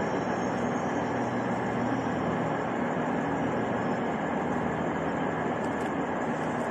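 Steady low hum and rumble of a railway station hall.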